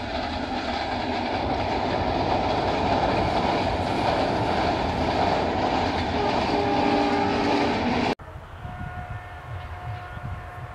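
Bangladesh Railway passenger train hauled by a diesel locomotive running along the track, a loud, dense rumble with wheel-on-rail noise. The locomotive's horn sounds for about a second and a half, some six seconds in. The sound cuts off abruptly about eight seconds in, and a much fainter, distant scene follows with a weak steady tone.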